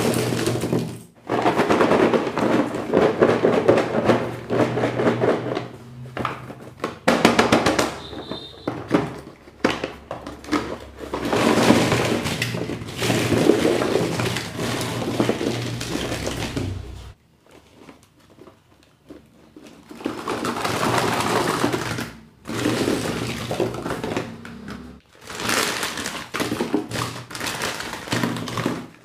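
Surprise-egg and candy wrappers crinkling and tearing, with clicks and knocks of plastic being handled and opened, pausing briefly a little past the middle.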